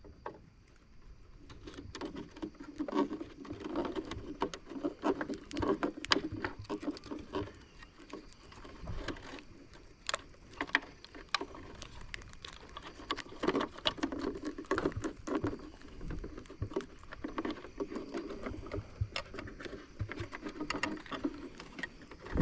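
Irregular clicks, taps and rustling of small parts being handled.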